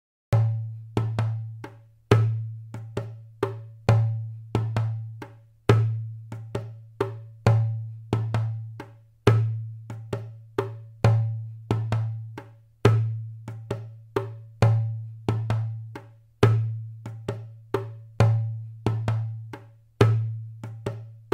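Background music: a sparse percussion loop of sharp clicks over a low drum note, with a strong beat about every two seconds and lighter hits between. It starts a moment in.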